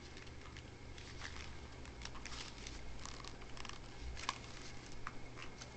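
Faint handling noises of an unboxed plastic toy launcher grip and its packaging: light rustling and small plastic clicks, with one sharper click about four seconds in.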